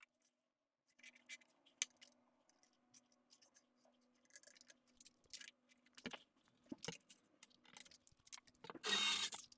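Light handling noises: scattered small clicks, taps and rubbing over a faint steady hum, with a louder rustling scrape near the end.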